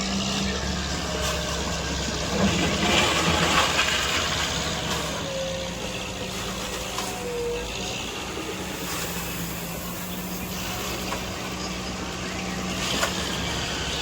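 A heavy machine's engine running steadily, with a louder stretch of noise for a second or so about two and a half seconds in and a sharp click near the end.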